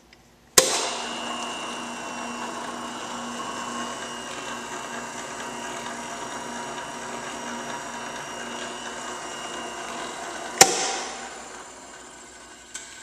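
Freshly rebuilt 1959 Hobart D300 mixer, with new bearings and seals, switched on with a sharp click about half a second in. Its motor and gear transmission run steadily with a low hum and a higher whine. It is switched off with another loud click about ten seconds later and winds down, with a light click near the end.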